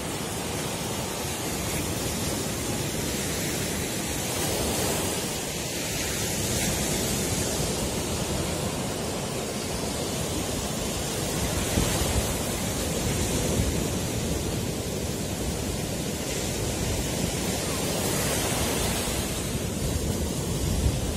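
Baltic Sea surf: waves breaking and foam washing up a sandy beach, a steady rushing hiss that swells every few seconds.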